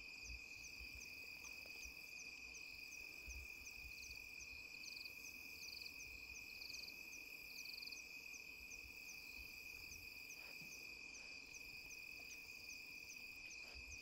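Faint night insect chorus: a steady high-pitched drone with crickets chirping in a fast, even rhythm of about two to three chirps a second, and a few brief trills partway through.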